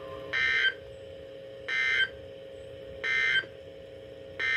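Emergency Alert System end-of-message data code from a NOAA Weather Radio broadcast: three short, identical bursts of two-tone digital warble, about 1.4 s apart, marking the end of the tornado warning. Near the end, a longer burst of the same data tones begins: the header code of the next warning.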